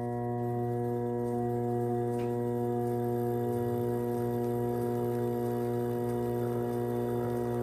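Electric pottery wheel motor running at speed with a steady, even hum that does not change in pitch.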